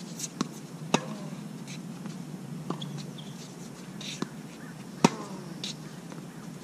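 Tennis rally on a hard court: several sharp pops of balls struck by racquets and bouncing, irregularly spaced, the loudest about a second in and about five seconds in, each with a brief ring of the strings.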